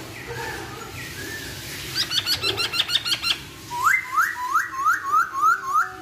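Masked laughingthrush (Hong Kong poksay) calling. About two seconds in comes a fast chatter of short, sharp notes lasting about a second, then a run of seven loud whistled notes, each sweeping upward.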